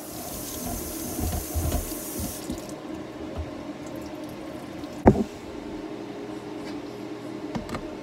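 Water pouring off soaked sticky rice as it is drained into a woven bamboo steaming basket at the sink; the pouring stops after about two and a half seconds. A single sharp knock comes about five seconds in, and a couple of light clinks follow near the end.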